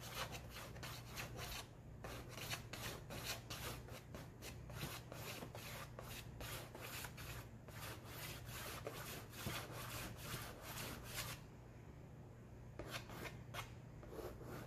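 White chalk scratching across black poster board in quick side-to-side strokes, about four a second. The strokes break off briefly about two seconds in, stop a little after eleven seconds, and a few more come near the end.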